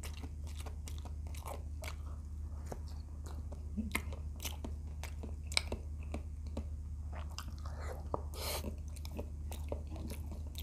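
A person chewing and biting fried tilapia with rice and vegetables close to the microphone: wet chewing with many short, sharp crunches and mouth clicks, over a steady low hum.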